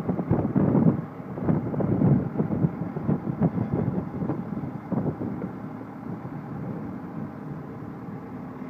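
Wind buffeting the microphone in irregular gusts, strongest in the first half and easing off, over a steady low engine hum that becomes clearer near the end.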